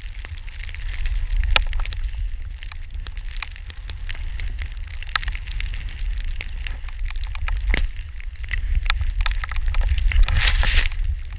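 Wind rumbling on the microphone of a pole-held camera while skiing through deep powder snow, with scattered crackles and ticks of snow and gear. A brief burst of hiss, likely snow spray, comes about ten seconds in.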